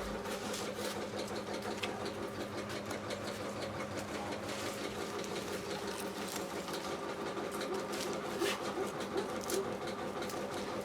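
A small motor running steadily with an even hum and a fast, regular rattle.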